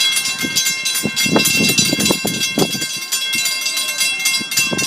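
Viscose Company #6 steam locomotive working slowly toward the listener, its exhaust chuffing over a steady noisy hiss.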